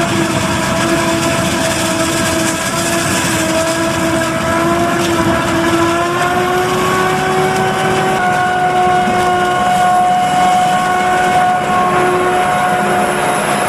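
Claas Jaguar 950 self-propelled forage harvester chopping maize: a loud, steady mechanical whine of several pitched tones over engine and crop noise. The pitch steps up about seven seconds in.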